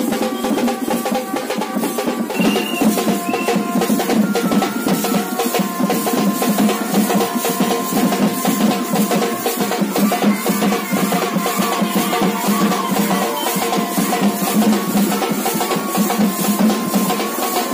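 Music driven by steady, dense drumming, with held melody notes over the beat.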